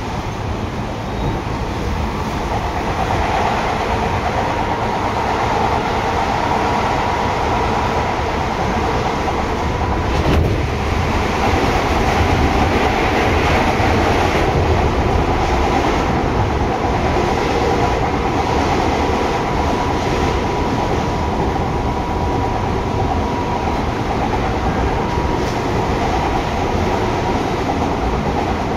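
Seibu 6000 series electric train with Hitachi GTO-VVVF traction equipment running at speed, heard inside the car above the underfloor line breaker: steady rumble of wheels on rail with a steady high tone, growing louder over the first few seconds, and a single knock about ten seconds in.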